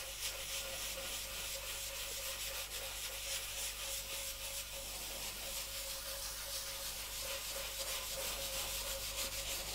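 A French-polishing rubber charged with fine pumice powder and methylated spirit being rubbed steadily over a shellac finish, a continuous abrasive scratching. The pumice slurry is filling the grain of the wood for a gloss finish.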